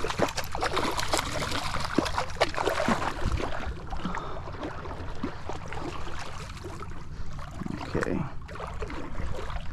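Water lapping and trickling against a fishing kayak's hull, with scattered small knocks and clicks.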